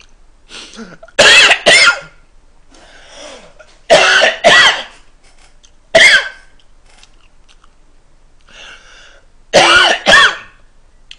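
A man coughing hard in short, partly voiced bursts: a pair about a second in, another pair about four seconds in, a single one at six seconds, and a last pair near the end, with quiet between.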